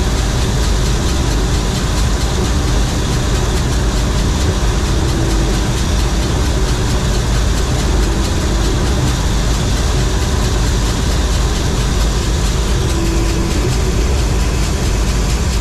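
John Deere 4400 combine running steadily under load: a constant heavy diesel rumble with the even whir of the machine's threshing and cleaning works over it.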